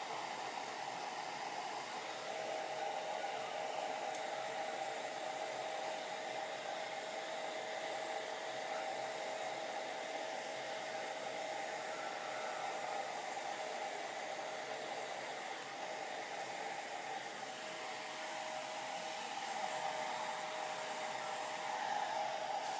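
Hair dryer running steadily: a constant rush of air with a steady motor whine.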